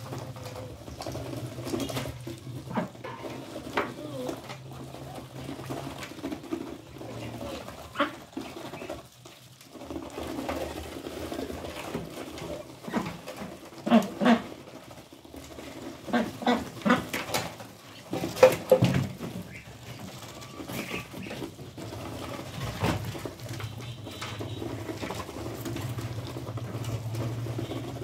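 White domestic ducks feeding together, their bills clicking and dabbling in the feed in quick, irregular pecks, with a few short calls clustered in the middle stretch.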